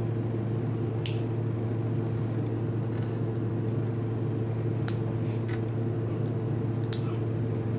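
Small Lego pieces clicking as they are pressed together by hand, about five sharp clicks spread out, over a steady low room hum.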